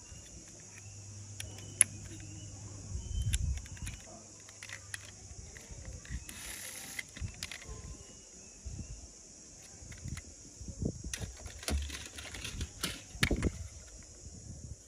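Scattered small clicks and knocks of metal toy cars being handled and turned over in the hands, with sharper knocks about two seconds in and near the end, over a steady high hiss.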